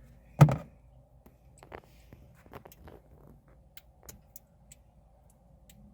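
One sharp thump about half a second in, then a scattering of light clicks and taps: hand tools and plastic dash trim being handled while Torx screws are taken out around a truck's accelerator pedal.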